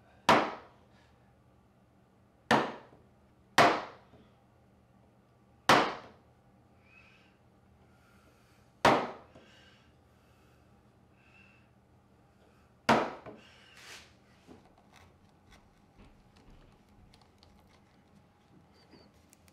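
Six sharp knocks a second or more apart, a mallet driving a carving gouge straight down into the wood to set in the outline of a carved pattern. After the last knock, faint small ticks and scraping as the gouge is pushed by hand.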